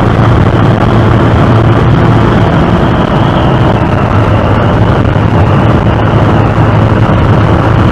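Motorcycle running steadily at cruising speed, its engine hum under loud, even road and wind noise on the microphone.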